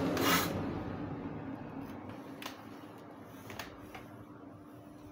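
Bench grinder's abrasive wheel running down, its whir fading steadily, with a short scrape near the start and a couple of faint clicks later.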